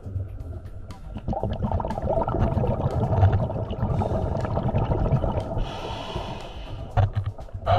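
Underwater sound of a scuba diver's exhaled breath bubbling out. It is a long, rough, gurgling rumble that swells about a second in, with a few sharper surges near the end.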